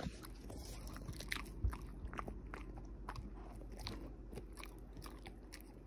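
An Australian Shepherd chewing a hard, chewy chicken stick treat: irregular crunching bites, about two or three a second.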